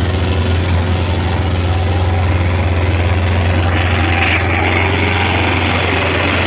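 Sonalika DI 750 tractor's diesel engine working hard under heavy load while pulling a double harrow, a steady low drone; the thick black exhaust shows it being pushed to its limit.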